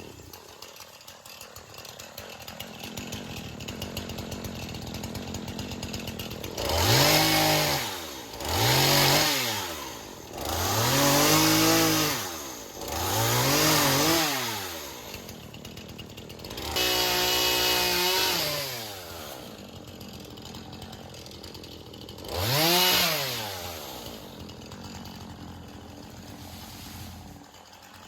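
Battery-powered Stihl pole saw's motor and chain revving in short bursts, about six times, each one rising in pitch and winding back down.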